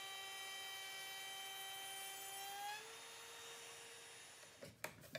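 Handheld router with a flush-cut bit running at speed, a steady high whine that rises in pitch almost three seconds in and then fades away. A few short knocks near the end.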